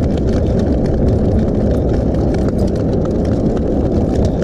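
Steady rumble of the electric drift trike rolling on asphalt, with wind on the microphone. Over it runs a fast string of light clicks.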